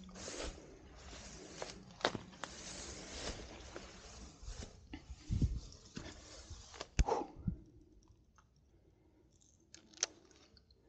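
Leaves and twigs rustling and crackling as someone pushes through bankside bushes, brushing close against the microphone, with scattered clicks and a few dull knocks. Most of it dies away about seven and a half seconds in, leaving a sharp click near the end.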